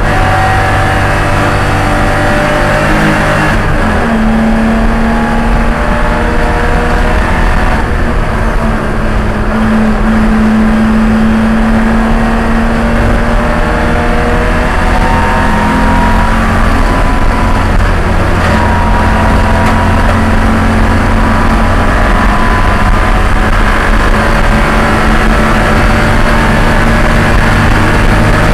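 A Spec E30 BMW race car's straight-six engine running hard at racing speed, heard from inside the cabin. Its pitch climbs and falls with gear changes and corners, over loud road and wind noise.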